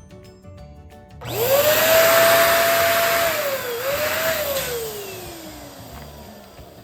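Electric balloon pump switched on about a second in: its motor spins up to a steady whine with a rush of air, dips briefly, then winds down with a slowly falling pitch.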